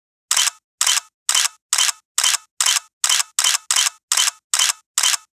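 A sound effect of twelve sharp clicks, each a quick double snap, a little over two a second and speeding up slightly.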